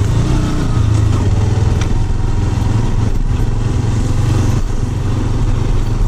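Motorcycle engine running steadily as the bike rides along a rough dirt track, a continuous low hum.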